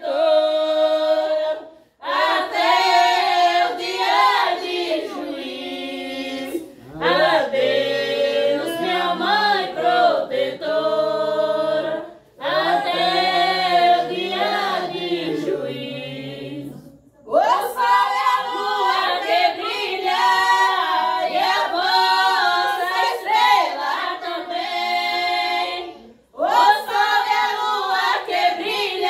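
A group of women and children singing a bendito, a Brazilian folk Catholic hymn to Our Lady of Candeias, unaccompanied, in long sung phrases with short breaks for breath about every five seconds.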